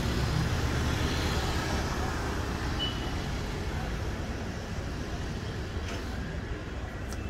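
Road traffic: a steady low rumble of vehicles, easing off a little over the seconds, with a brief faint high beep about three seconds in.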